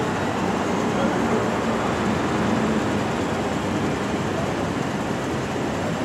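Steady rumble and hiss of vehicle and street noise, with no sudden sounds.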